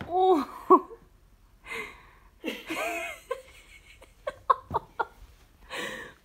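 A person laughing in a few short bursts, with breathy, wheezy breaths between them.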